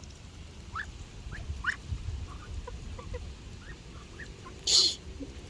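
Farmyard poultry, ducks and chickens, calling softly with short, scattered chirps and clucks. A brief, louder hissing burst sounds near the end.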